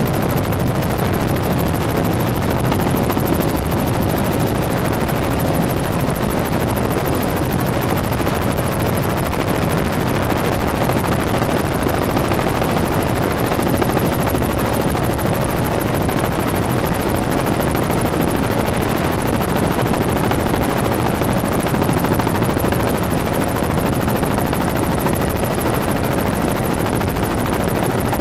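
Helicopter rotor and engine noise, loud and steady throughout, with no change in pitch or level.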